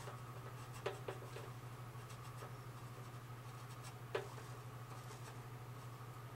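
Faint handling noises on a model airplane: a few light taps and clicks, about four in all, the sharpest a little after four seconds, as a measuring line is held along the fuselage. A steady low hum runs underneath.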